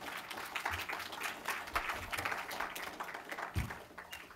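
Audience applauding, the clapping dying away near the end, with a single low thump a little after three seconds in.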